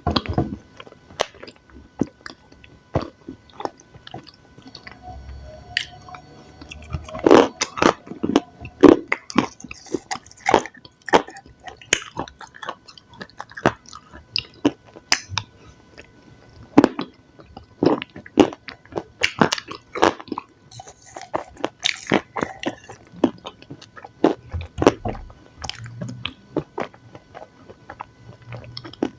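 Close-miked chewing and biting of crunchy food: irregular sharp crunches, loudest from about seven to twenty-three seconds in, between softer chewing.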